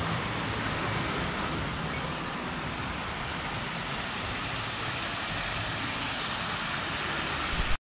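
Water splashing steadily from a fountain: an even, unbroken hiss of falling water.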